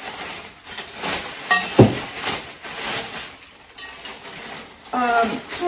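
Plastic packaging crinkling around metal garment-rack tubes as they are handled, with light metal clinks and one sharp knock about two seconds in.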